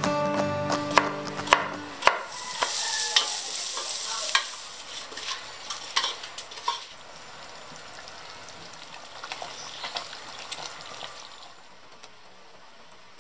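Rice and chicken sizzling in a hot pot as they are stirred, a utensil scraping and clicking against the pan. The sizzle is loudest about two to four seconds in, then dies down to a faint hiss with scattered clinks.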